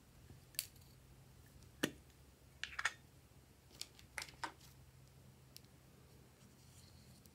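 Small plastic cases being handled and opened: a scattering of sharp plastic clicks and taps, some in quick pairs, over a faint low hum.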